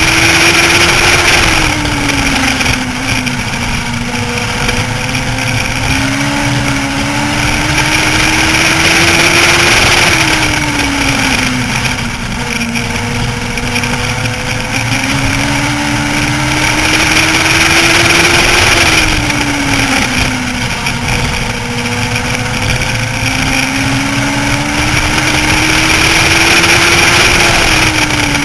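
Legends car's Yamaha motorcycle-derived four-cylinder engine heard from inside the car at racing speed, its pitch climbing slowly through each straightaway and then dropping sharply as it lifts for the corners, about every eight to nine seconds. Steady wind and road noise underneath.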